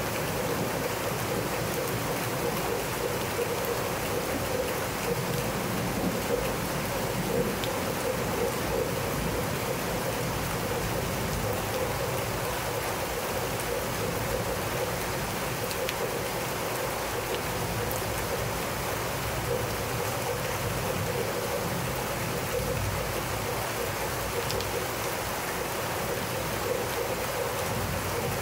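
Steady rain falling on wet brick pavers and a pool, mixed with the continuous splash of the pool's water-wall fountain. It holds at an even level throughout, with a few faint single drop ticks.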